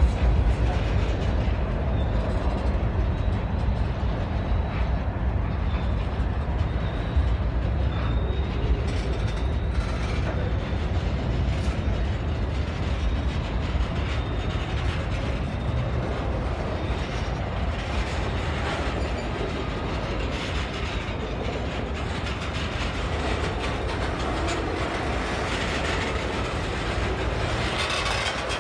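Freight cars of a CSX manifest train (tank cars and covered hoppers) rolling past, a steady low rumble with scattered clicks of wheels over the rail joints.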